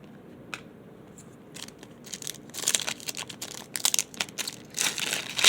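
Crinkling and tearing of a plastic trading-card pack wrapper being torn open, starting about a second and a half in and growing louder, with a single click just before.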